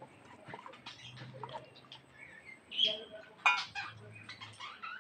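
Birds chirping and calling, a scatter of short high chirps with one louder call about three and a half seconds in.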